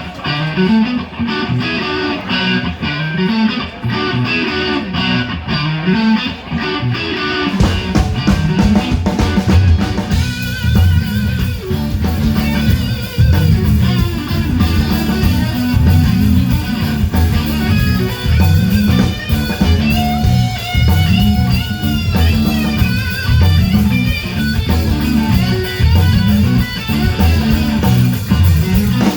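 Live blues band playing: electric guitar opens the slow blues, with bass and drums joining about seven seconds in and the full band playing from about ten seconds in.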